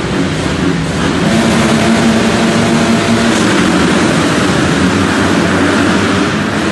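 A full gate of motocross bikes revving and accelerating off the start together at a race start, their engines rising in pitch and growing louder about a second in.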